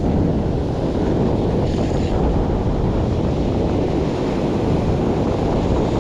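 Surf washing up the beach, with wind blowing steadily on the microphone.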